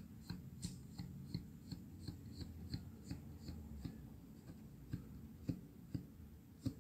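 Faint clicks of fingers and yarn loops working over the metal pegs of a rectangular knitting loom, about three a second, then a few sparser, louder clicks in the second half.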